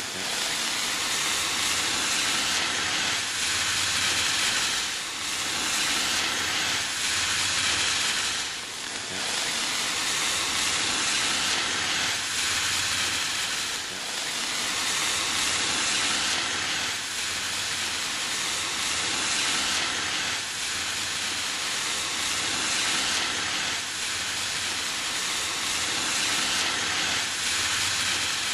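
A hand-held flare (bengala) burning: a steady hiss that swells and dips slightly every few seconds.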